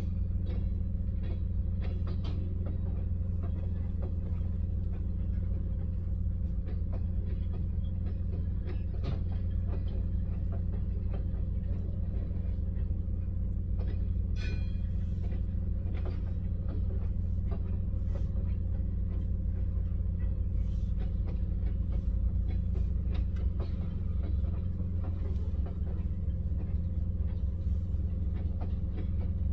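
Tank cars of a slow freight train rolling past: a steady low rumble with scattered clicks of wheels over the rails, and a short high squeal about halfway through.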